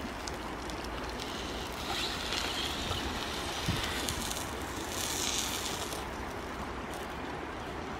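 Steady outdoor noise that swells twice into a louder hiss.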